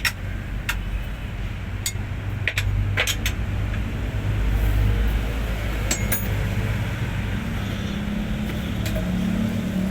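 Hino 500 truck diesel engine running with a steady low rumble, with sharp metallic clinks of tools struck or set down every second or so in the first half.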